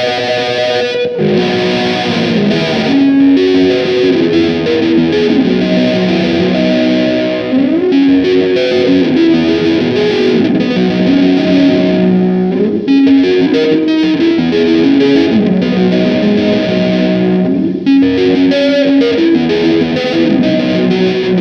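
Instrumental music led by a distorted electric guitar with effects, playing a melody of held notes with occasional pitch slides.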